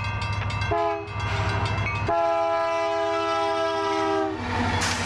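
Union Pacific diesel locomotive's air horn: a short blast and then a long blast of about two seconds, several notes sounding together as a chord, over the locomotive's steady low rumble. A single sharp crack follows near the end.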